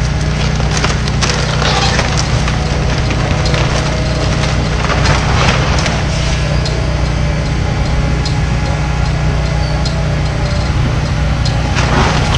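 Excavator engine running steadily while its arm tears into a wood-frame house: timber cracking and splintering in irregular snaps over the engine hum.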